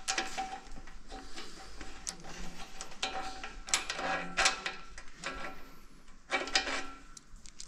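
Hand tools and metal engine parts clicking and clattering during a teardown of a small 178F diesel engine, in a series of short rattling bursts.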